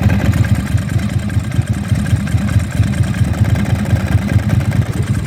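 Ducati 999S L-twin engine idling steadily, its dry clutch with a new aluminium basket and friction plates giving a very quiet, solid dry-clutch rattle rather than the tinging clank of worn plates.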